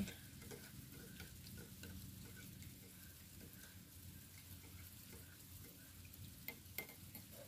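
Light rain pattering faintly, with a few soft clicks near the end.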